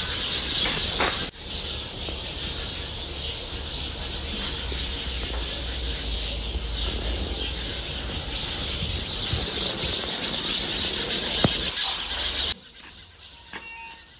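A dense, steady chorus of many birds chirping, which stops abruptly near the end.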